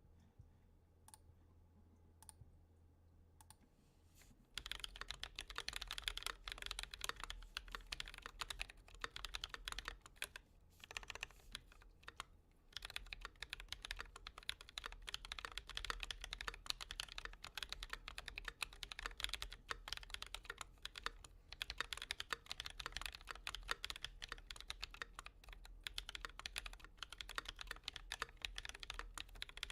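Typing on a Tokyo60 mechanical keyboard with lubed Easter Bois tactile switches (mint Holy Panda type, 72 g springs) under GMK keycaps. A few lone keystrokes come first, then steady fast typing from about four seconds in, with one short pause partway through.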